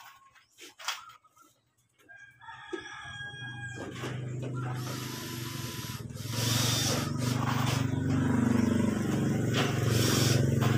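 A rooster crows about two seconds in. After it, a steady low hum builds and gets louder at about six seconds.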